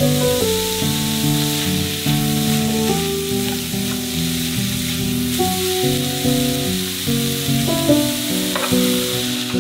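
Food sizzling in hot oil in a pan, a steady hiss that cuts off suddenly at the end, with background music playing underneath.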